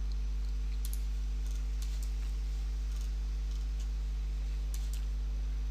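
A low, steady electrical hum on the recording, with a few faint computer-mouse clicks scattered through it as points of a curve are placed.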